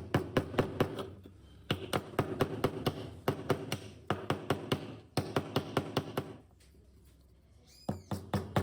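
Rapid light tapping, several sharp taps a second, in runs of one to two seconds separated by short pauses.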